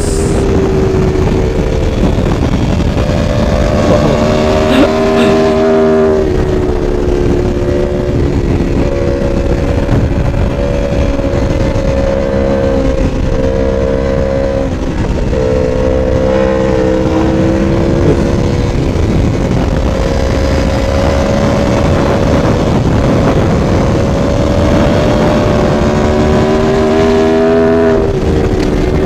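Sport motorcycle engine running at high revs at highway speed, its pitch stepping down and up a few times with the throttle, over a constant rush of wind noise.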